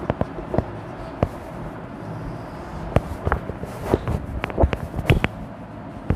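Whiteboard marker tapping and scraping against the board, with scattered short knocks and clicks from handling, over a steady low background hum. The clicks are irregular and come thickest in a cluster past the middle.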